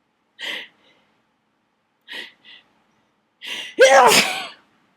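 A person sneezing during a dust-triggered sneezing fit. There are short catching breaths about half a second in and twice around two seconds, then a gasping in-breath builds into one loud sneeze near the end, its vocal sound falling in pitch.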